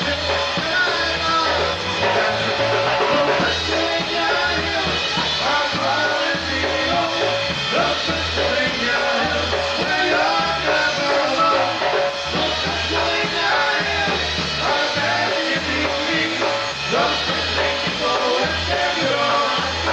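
Live polka band playing a polka, with a regular two-beat bass under the melody.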